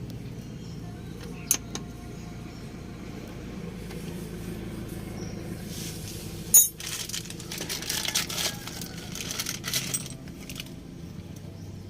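Metal tools and parts clinking: a couple of clicks, a sharp knock about six and a half seconds in, then a few seconds of clattering, over a low steady hum.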